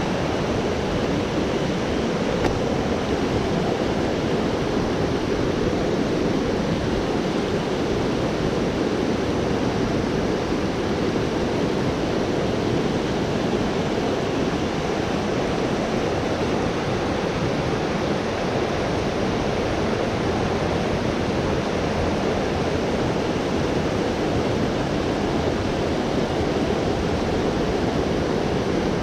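A fast-flowing creek running high over boulders and small rapids: a loud, steady, unbroken rush of water.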